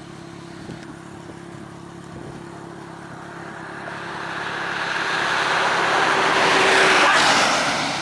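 A road vehicle passing at speed: it grows steadily louder for several seconds, is loudest about seven seconds in, then falls away. A low steady hum sits underneath at first.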